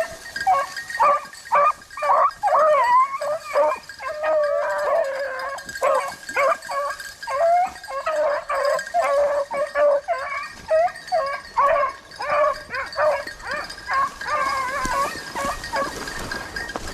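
A pack of rabbit-hunting hounds baying on a rabbit's trail, many overlapping voices in quick succession. The calls die away near the end.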